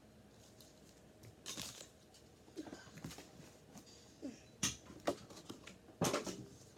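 Toy packaging and plastic toys being handled: scattered rustling with a series of short clicks and taps, the sharpest about two-thirds of the way through and near the end.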